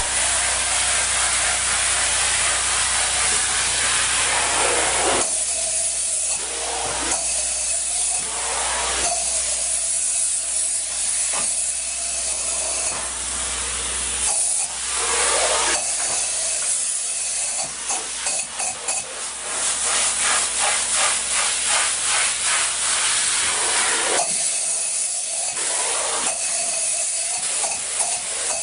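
Spray-foam gun hissing as it sprays polyurethane foam insulation into wall stud cavities, in long spurts that shift in tone several times. About two-thirds of the way through, the spray sputters in a quick run of pulses.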